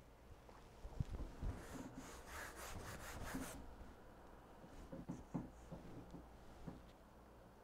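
Quiet handling noise as a stretched canvas is set down on cardboard: a couple of soft knocks, a dry scraping rub lasting about two seconds, then a few light taps.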